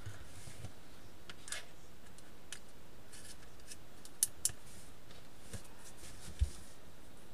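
Light clicks and rubbing from small objects being handled by hand, over a steady faint hiss, with a few sharper clicks around the middle and near the end.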